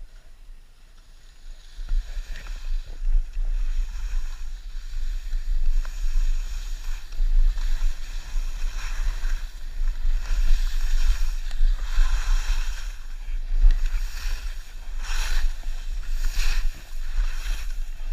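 Wind buffeting the camera's microphone while skiing downhill, with the hiss and scrape of skis carving over snow. It grows louder about two seconds in, and two strong swooshes of ski edges come near the end.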